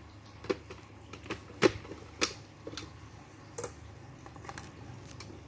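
Scattered light plastic clicks and knocks, about eight in all and sharpest near the middle, as a Misuko blender's jug is set onto its motor base and the power plug is pushed into a power strip; the motor does not run.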